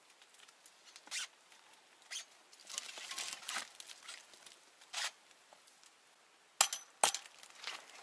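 Homemade metal climbing tree stand being worked up a tree trunk: short bursts of scraping against the bark, then two sharp metallic clinks about half a second apart near the end.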